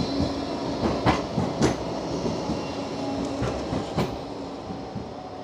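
Blackpool Flexity 2 tram passing close by on street track: a steady running hum and rolling wheel noise, with sharp clacks of the wheels over the rails about a second in, again half a second later, and around four seconds in.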